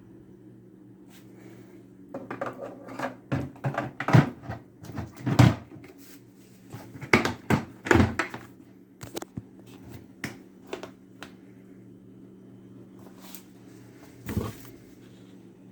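Hard objects being handled: a run of sharp knocks and clicks, busiest in the first half, then a few scattered ones, over a faint steady low hum.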